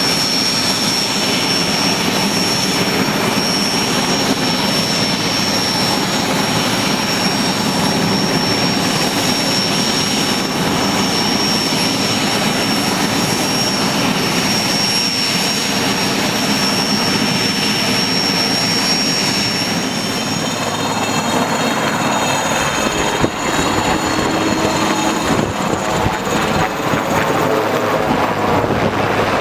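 IAR 330 Puma helicopter's twin turboshaft engines and rotor running, with a loud, steady high-pitched turbine whine. About twenty seconds in, the whine fades and several wavering tones take its place as the engine note changes.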